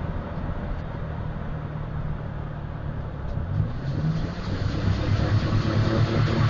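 1997 Dodge Ram 1500's 3.9 V6 running on the move, first coasting off the throttle and then, about four seconds in, growing louder as it pulls under throttle. The engine has a cylinder 3 misfire (code P0303).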